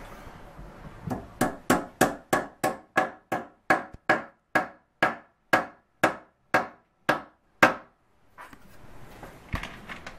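Small hammer tapping walnut plugs into holes in a wooden drawer bracket: a steady run of about twenty sharp taps at roughly three a second, starting about a second in and stopping about eight seconds in.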